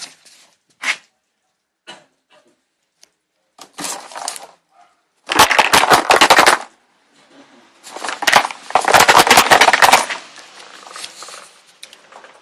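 Two bursts of rapid automatic fire from an airsoft gun: the first lasts over a second, about five seconds in, and the second lasts about two seconds, a little later. A few single clicks come before them.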